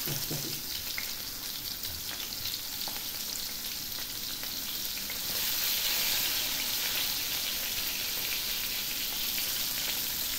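Flour-dusted whole small fish sizzling in hot oil in a frying pan: a steady frying hiss that grows louder about halfway through.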